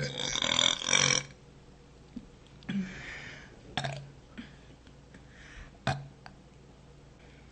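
A woman's long, loud burp, lasting about a second at the start, followed by a softer breathy sound and a few sharp clicks.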